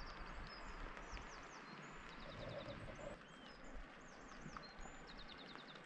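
Small birds singing, with repeated quick high trills and short chirps, over a soft steady hiss and a low rumble.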